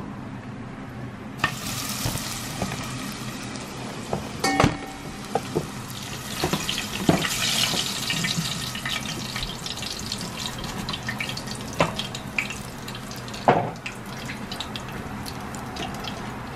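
Corn-flour-coated chicken feet deep-frying in hot oil in a pot: a dense crackling sizzle that starts suddenly about a second and a half in as the batch goes into the oil. A few sharp knocks of metal utensils and the splatter screen on the pot.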